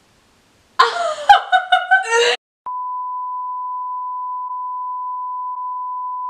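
A loud vocal outburst lasting about a second and a half, then a steady, high-pitched censor bleep, a single pure tone, that starts just before halfway and holds on.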